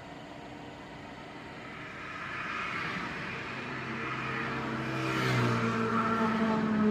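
Car engine and road noise heard from inside the cabin while driving on a highway. The noise builds gradually, and about five seconds in the engine's hum steps up in pitch and grows louder as the car picks up revs.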